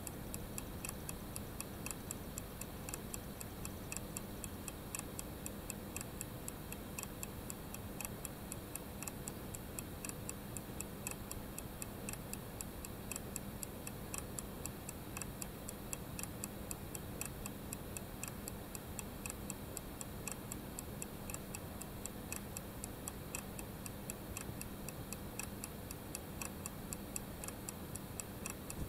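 Duplex escapement in an open pocket-watch movement ticking in a rapid, even rhythm. The escape wheel has doubled teeth and gives impulse once every two swings of the balance. The hand-made balance and staff run slightly out of true but click reliably.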